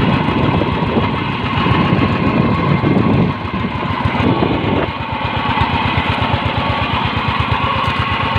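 Fishing boat's engine running under way with a fast, even putter, and water rushing along the hull, loudest about two to three seconds in.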